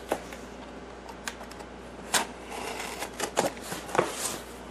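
Hands handling a cardboard shipping box: scattered taps and clicks with light rustling and scraping of the cardboard and its paper labels and tape.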